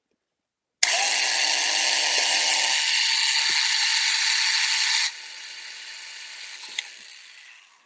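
Power drill boring a hole into a painted wooden car card box. It starts suddenly about a second in and runs steadily, drops to a quieter run at about five seconds, then fades out near the end. The bit is judged dull.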